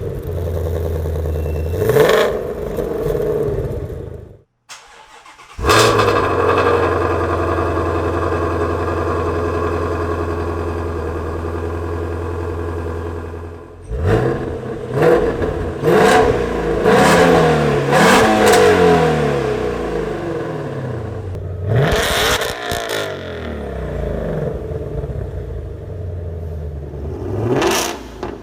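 Shelby Mustang's 5.2-litre V8 revved while standing still. It idles with a quick blip, and after a short break it is held at high revs for about seven seconds. Then come a string of sharp revs that rise and fall, a return to idle, and one last blip near the end.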